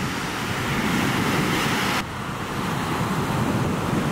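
Ocean surf washing onto the shore, with wind buffeting the microphone. The surf swells over the first two seconds, drops abruptly, then carries on.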